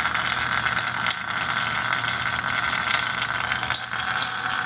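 Portable EDM setup running with its coolant pumps and hydrocyclone: a steady machine hum and whine with a continuous irregular crackle of fine clicks.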